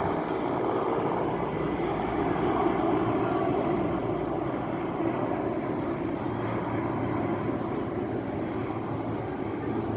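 Helicopter flying overhead, its rotor and engine noise running steadily, with a low hum coming in about two-thirds of the way through.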